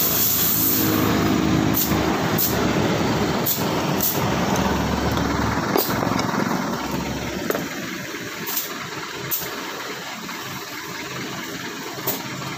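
A motor vehicle engine running in the background, dropping away about seven and a half seconds in, with scattered light clicks and taps of small metal parts being handled.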